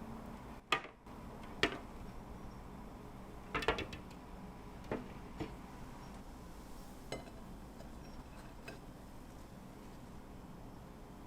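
Kitchen dishes and utensils clinking and knocking as food is prepared: a scattered run of short, light clinks and clacks at irregular intervals, the sharpest about a second in and a quick cluster a little before the middle.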